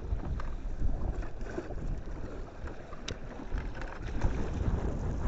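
Wind buffeting the microphone aboard a trolling boat, a steady low rumble that rises and falls with the gusts, with a sharp click about three seconds in.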